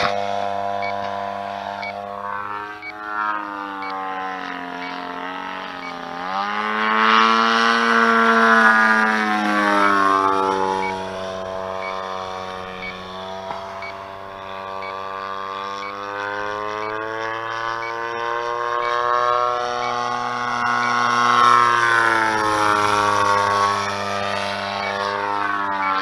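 Large RC aerobatic plane's DLE 111 twin-cylinder two-stroke gas engine running in flight, its pitch sliding up and down throughout and its sound swelling twice.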